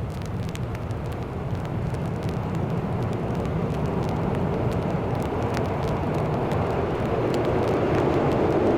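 A vehicle approaching: a low rumble that grows steadily louder, with scattered faint clicks.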